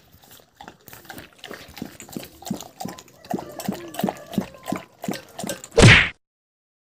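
Golden retriever lapping water from a stainless steel bowl, about three laps a second. Near the end a short, loud burst of noise comes in, and then the sound cuts off.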